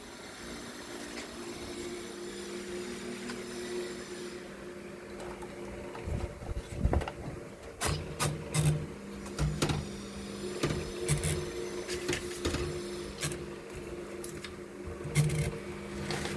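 Typewriter mechanism clacking: irregular sharp strikes and knocks begin about six seconds in, over a steady low hum.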